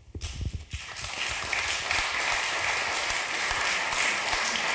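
Audience applauding. The clapping starts within the first second and quickly swells to a steady, dense patter.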